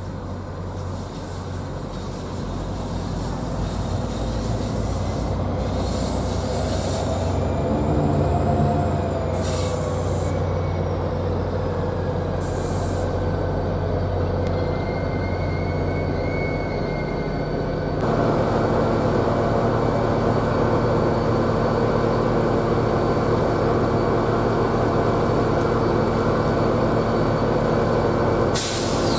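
Diesel-hauled train moving through the station, its engine running steadily with wheel squeal from the rails. About two-thirds of the way through, the engine sound abruptly steps up and holds.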